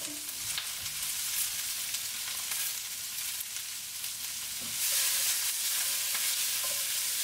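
Bell peppers, onions and carrots sizzling in hot oil in a stainless steel frying pan over a medium-high gas flame, stirred with a wooden spoon. The sizzle grows louder about five seconds in.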